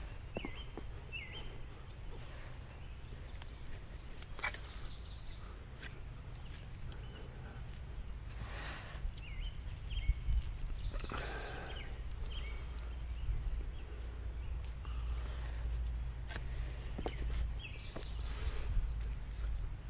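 Outdoor ambience with short high chirps from birds now and then, over a steady low rumble.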